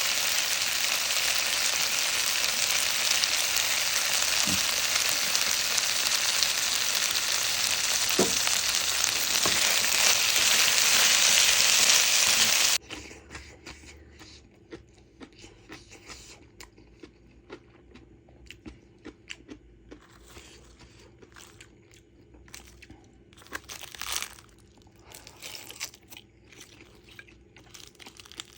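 Kkakdugi fried rice sizzling loudly and steadily in a hot pan with sesame oil just added, for about thirteen seconds, then an abrupt cut to quiet eating: scattered crunching and chewing with a louder crunch about twenty-four seconds in.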